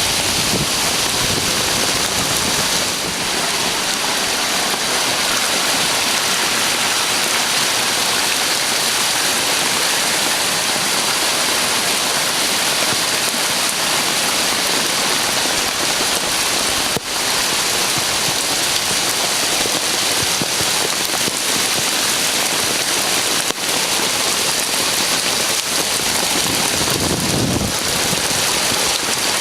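Heavy typhoon rain pouring steadily as a loud, even hiss, with a brief low rumble near the end.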